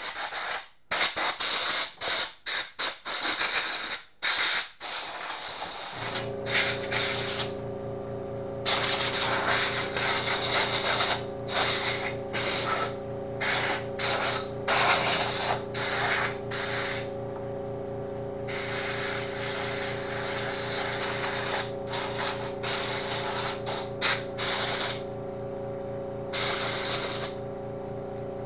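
Compressed-air blow gun hissing in short blasts, blowing dust off a chainsaw. About six seconds in, an air compressor starts and runs steadily with a low hum under repeated long blasts from the blow gun.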